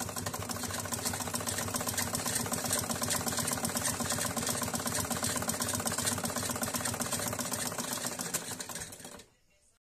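A black domestic straight-stitch sewing machine running steadily, its needle mechanism clattering in a rapid even rhythm as it stitches a folded hem on cotton kurti fabric, then stopping suddenly near the end.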